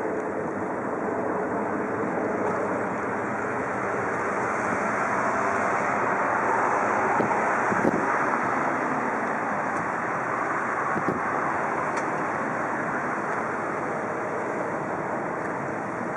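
Twin-engine jet airliner passing high overhead: a steady, rushing jet roar that swells slightly midway and then slowly fades as the aircraft moves off.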